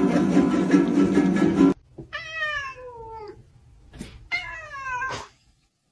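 Music cuts off suddenly, then a pet gives two drawn-out, meow-like calls, each falling in pitch and lasting about a second.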